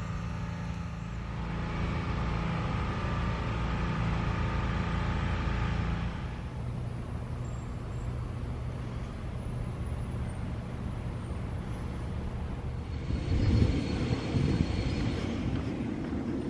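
Steady mechanical hum, like an engine running, with louder uneven low rumbling about thirteen seconds in.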